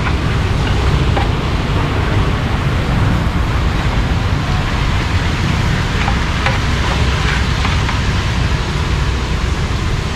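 Steady, loud low rumble and hiss of outdoor background noise, with a few faint light ticks.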